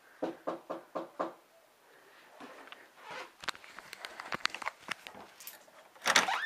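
A quick run of five thuds, then scattered light clicks and rustling from a handheld camera being moved about, with a loud brief rustle near the end.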